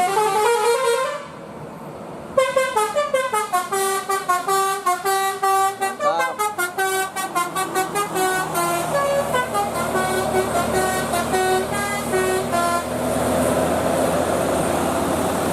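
Bus telolet Basuri horn: a brief rising note, then a quick melody of many short stepped notes lasting about ten seconds. After the melody stops, a steady noise remains.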